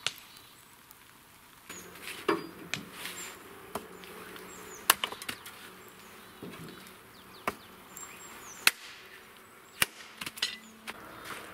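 Hatchet splitting firewood on a wooden stump chopping block: a series of sharp chops about once a second, over a faint steady low hum.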